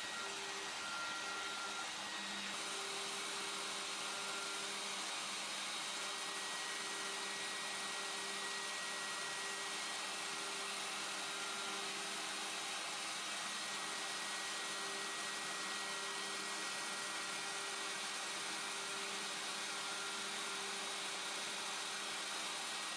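DeWalt 611 compact router running as a CNC spindle while it mills, a steady rushing noise with a faint hum and whine of the motor underneath.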